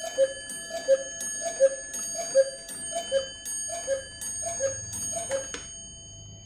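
Cuckoo clock on its 8-day mechanical movement striking twelve: the two-note cuckoo call, high then low, repeats about every three-quarters of a second, each call with a strike on the bell that rings on. Eight calls fall here, and the last comes about five and a half seconds in.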